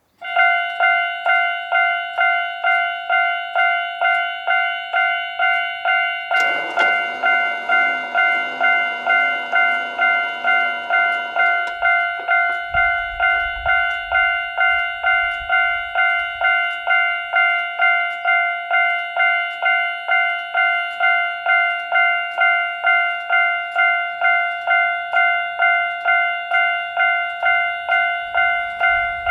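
Japanese railroad crossing warning bell ringing in a steady, even series of dings, about two and a half a second. About six seconds in, a rougher, noisier sound joins it for several seconds.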